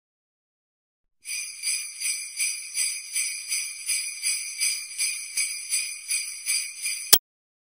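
Jingle bells shaken in a steady rhythm, about three shakes a second, starting about a second in and ending in one sharp accent hit.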